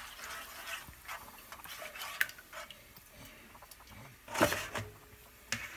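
Spatula scraping and tapping against a nonstick frying pan as eggs are scrambled, in light scattered clicks. A louder clatter comes about four and a half seconds in.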